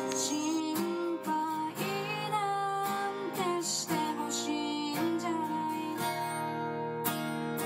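Background song of strummed acoustic guitar with a singing voice.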